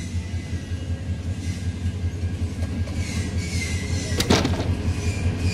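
Diesel-electric locomotive hauling a passenger train as it approaches, its engine a steady low drone that grows louder. A single sharp clack comes a little after four seconds in.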